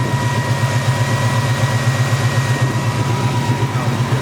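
1967 Chevrolet Chevelle's 396 big-block V8, freshly rebuilt with a new cam, idling with an even, rhythmic pulse, and a faint steady high whine over it.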